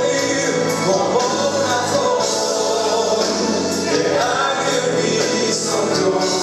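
Christian worship song: voices singing together over instrumental backing, with regular percussion hits.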